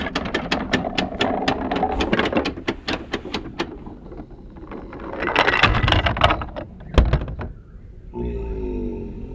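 Wooden Percy toy engine rolling down a plastic Take-n-Play track, its wheels clicking rapidly over the track, then a louder rattling run and a single sharp knock about seven seconds in as it tips off and lands on its side on the plastic base.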